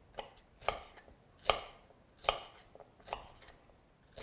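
Kitchen knife chopping red and green bell peppers, a steady run of evenly spaced chops about one a second.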